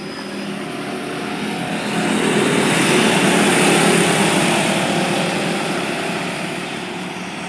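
A pack of Micro-D race cars' small engines running hard, accelerating off the green-flag start. The sound swells as the field passes close by about three to four seconds in, then fades as the cars pull away.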